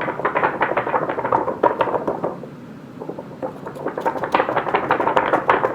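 The cover of a spiral-bound book, shaken and flexed to imitate thunder: two long bursts of rapid crackling rattle, with a short pause between them.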